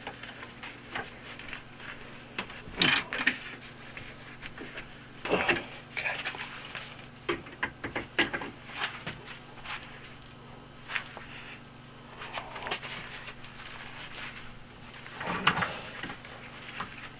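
Irregular metal clanks, knocks and scrapes of tongs and hand tools against a steel vise as a red-hot railroad spike clamped in it is worked, loudest about 3 s, 5.5 s and 15.5 s in, over a low steady hum.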